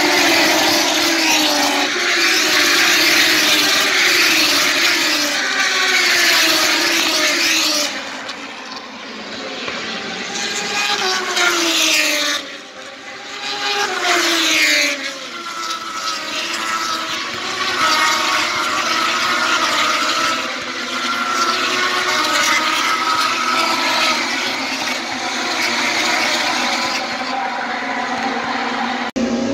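Moto2 racing motorcycles with Triumph 765 cc three-cylinder engines at high revs, several bikes passing in succession, their engine notes climbing and dropping with gear changes and as they go by. The sound changes abruptly about eight seconds in.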